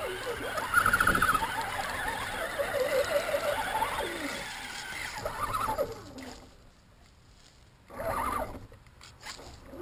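Electric RC crawler truck's motor and gears whining, the pitch wavering up and down with the throttle, as its tyres churn through shallow creek water. It goes mostly quiet about six seconds in, with two short bursts near the end.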